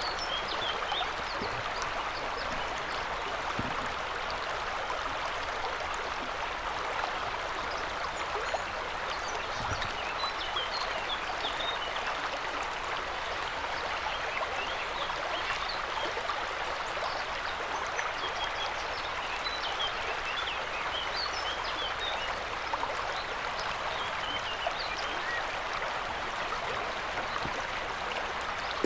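River water rushing steadily over its bed, a constant even rush without pauses or changes.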